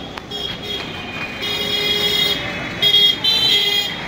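Electric rickshaw's horn beeping three times, the first and last beeps close to a second long. Crowd hubbub runs underneath.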